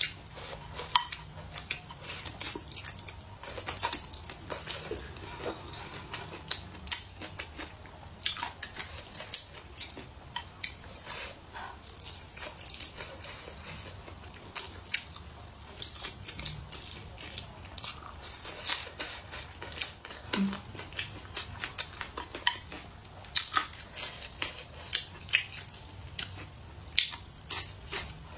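Close-up eating sounds: a person biting and chewing mouthfuls of stir-fried food, with many quick wet clicks and smacks of the mouth. Now and then wooden chopsticks tap the ceramic bowl.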